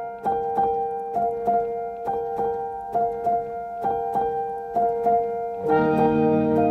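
Background music: a piano repeating a short figure of notes at about three a second. Fuller, lower sustained notes join in near the end.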